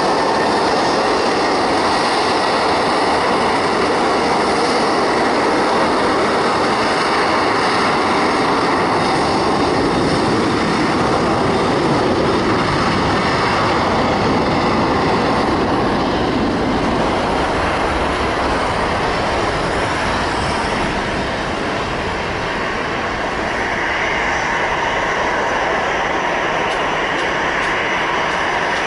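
Steady, loud jet noise from a Boeing 737-800 freighter's CFM56 turbofan engines during its takeoff, dipping slightly about two-thirds of the way through.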